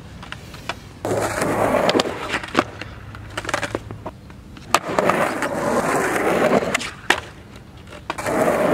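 Skateboard wheels rolling over concrete in three stretches, with several sharp clacks of the deck and tail striking the ground between them.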